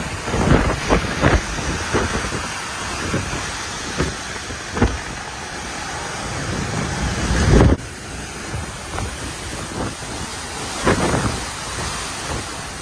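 Typhoon-force wind gusting hard and buffeting the microphone in a continuous rush, with sharp gust peaks. One gust builds to the loudest point and cuts off abruptly about eight seconds in.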